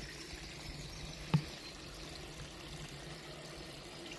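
Spring water trickling and splashing steadily as it pours from a small spout into a stone well trough. One short knock about a second in.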